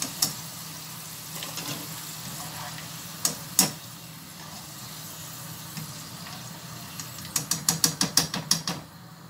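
Potato cubes frying in hot oil with a steady sizzle, while a wire spider strainer scoops them out and clinks against the metal pan a few times. Near the end, a quick run of metal taps, about eight a second, as the strainer is shaken over the pan to drain off the oil.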